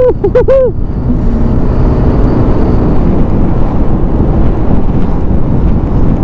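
Wind and wet-road noise of a Yamaha Aerox V2 scooter riding along a rain-soaked road, with the scooter's single-cylinder engine running steadily under the rush.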